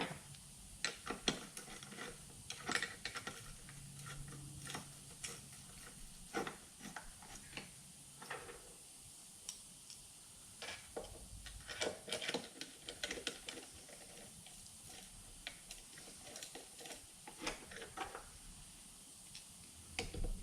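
Light, irregular clicks and taps of metal parts being handled as a GM alternator's housing is put back together, some coming in quick clusters.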